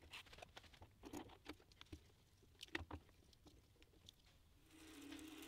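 Faint clicks and light metallic knocks of hands setting up a dial indicator on its magnetic base against a steel linear rail. A steady low hum starts near the end.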